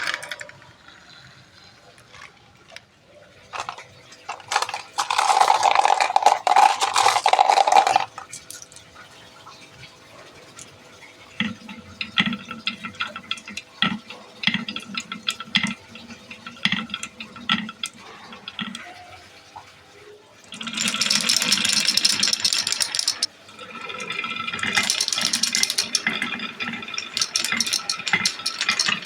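Marbles rolling and rattling through a marble run's tracks and pipe, with many sharp clacks as they drop and knock against the pieces. Twice a longer stretch of louder rolling builds up, a few seconds in and again past the middle.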